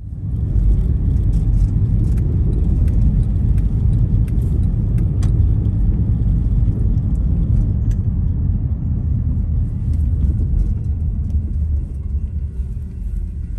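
Road noise inside a moving car's cabin: a steady low rumble of tyres and engine with a few faint clicks, easing off near the end as the car slows.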